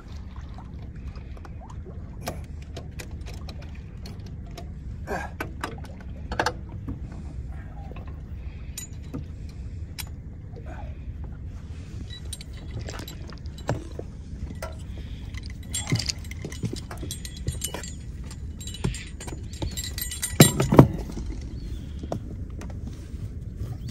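Anchor chain and metal bow hardware clinking and knocking as the anchor is being brought up, with a cluster of louder metal knocks near the end, over a steady low rumble.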